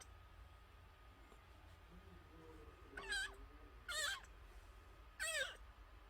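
Unweaned kitten, under a month old, mewing three times in shrill, wavering high-pitched cries, each about half a second long.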